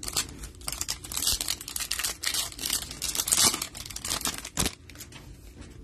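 Foil wrapper of a 2022 Donruss Optic football card pack crinkling and tearing as it is ripped open, loudest about three seconds in and ending with a sharp crackle near the end.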